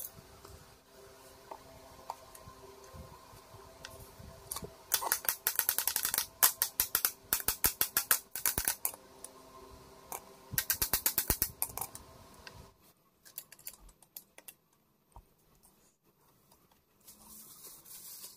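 Underside mechanism of an old Singer sewing machine worked by hand: its metal shafts and linkages clatter in two bursts of rapid clicking, about five seconds in and again around ten seconds in. A steady hum runs underneath and stops about two-thirds through.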